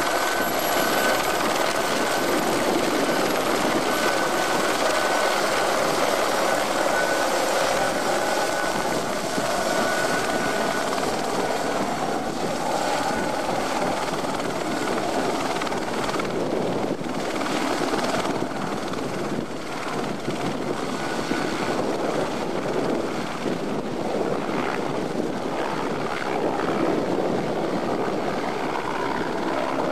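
Aérospatiale AS355F2 twin-turbine helicopter hovering low as it comes in to land: a steady rotor roar, with a thin high turbine whine that is clearest in the first part.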